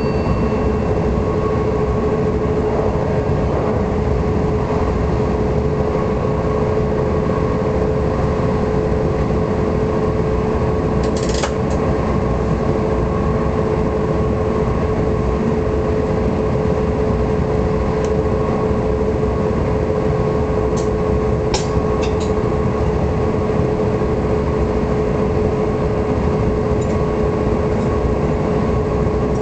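NS electric train running at steady speed, heard from the cab: an even rumble of wheels on rail with a constant hum held at one pitch. A few short high clicks come about a third of the way in and again about two-thirds through.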